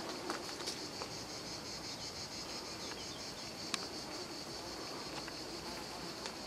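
Insects chirping in a steady, high-pitched, rapidly pulsing chorus, with a few sharp clicks, the clearest about halfway through.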